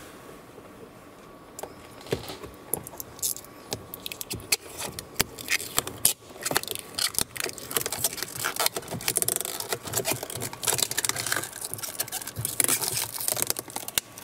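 Thin blue plastic protective film being picked at and peeled off a stainless steel mesh speaker cover: a run of small crinkling, crackling clicks that thickens from about two seconds in.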